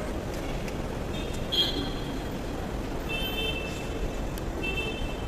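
Steady traffic noise of cars at an airport drop-off kerb under a covered forecourt, with three short high-pitched tones about a second in, around three seconds in, and near the end.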